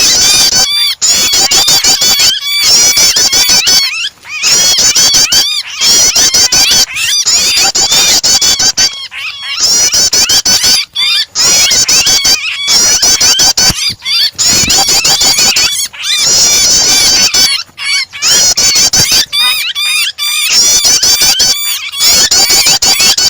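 Prinia (prenjak) chirping rapidly and loudly, mixed with the frantic distress calls of a trapped bird, as used in a bird-lure recording. The calls come in fast runs of a second or two broken by brief gaps.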